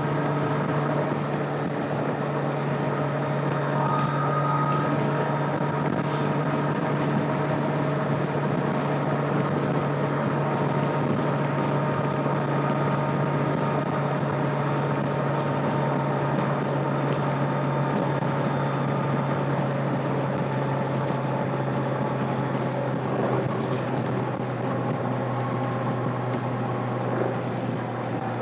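Stock 2025 Kawasaki Z900's 948 cc inline-four engine and exhaust running steadily under way, with wind and road noise; the engine note drops a little lower near the end as the bike eases off.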